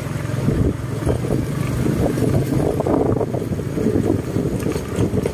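Motorcycle engine running steadily while riding, heard from the bike itself, with road and wind rumble mixed in.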